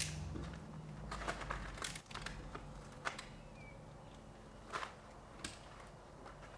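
Intermittent crinkling, rustling and light clicks of an Intello Plus airtight membrane sheet being cut with a utility knife along a window frame and the offcut handled.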